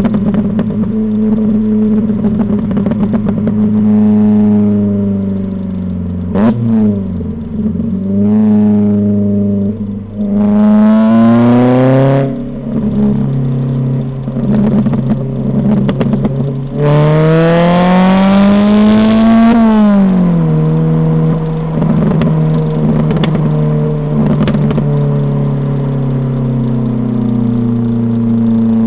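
Ford Fiesta MK6 ST150 (XR4) 2.0-litre four-cylinder engine through its modified exhaust while driving. The revs climb hard twice, a little before halfway and again past halfway, and fall away at each gear change. Sharp pops and crackles come on lift-off.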